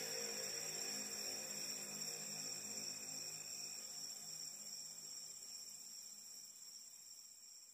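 Faint background ambience: a steady high trill over a low hum, fading out toward silence near the end.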